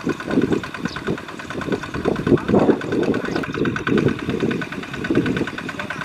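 Single-cylinder diesel engine of a two-wheel walking tractor running under load with a fast, even firing beat as it drives its trailer through deep mud.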